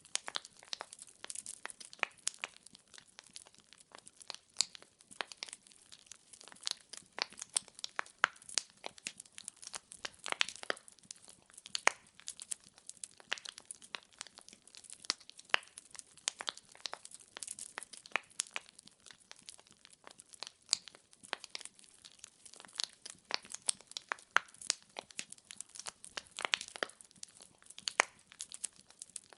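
Wood fire burning, its logs crackling with irregular sharp pops and snaps over a faint hiss.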